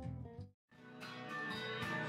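Blues band music with strummed guitars. It fades out to a short dead gap about half a second in, then guitar strumming starts up again and builds.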